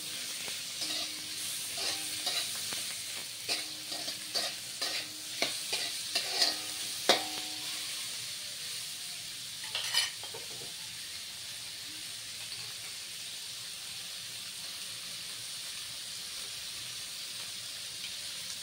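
Sliced pork and onions sizzling in hot oil in a wok. For the first seven seconds or so a spatula scrapes and tosses them, clicking against the wok. After that the sizzling goes on steadily, with a single clatter about ten seconds in.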